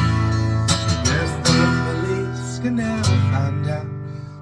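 Acoustic guitar strumming chords, one strum about every three-quarters of a second, the ringing chord dying away near the end.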